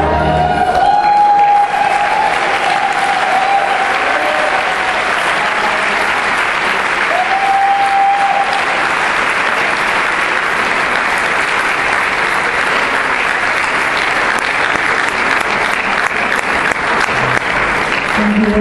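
Audience applauding steadily at the end of a dance, with the last notes of the dance music dying away in the first couple of seconds.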